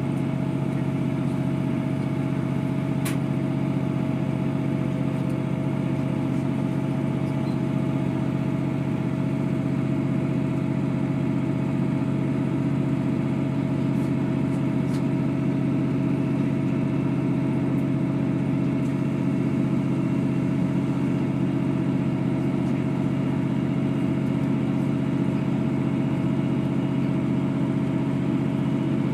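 Underfloor diesel engine of a Class 159 multiple unit running hard and steadily under power, heard inside the passenger saloon as a loud, even drone with a steady hum in it.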